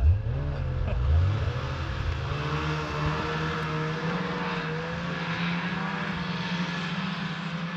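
Snowmobile engine revving up as the sled pulls forward in the first second or so, then running steadily at a low, even speed.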